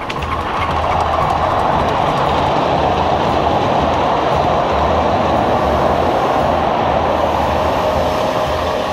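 Miniature ride-on train passing close by: the wheels of the passenger cars rolling on the 7¼-inch-gauge track, swelling about a second in and easing off near the end as the cars go past.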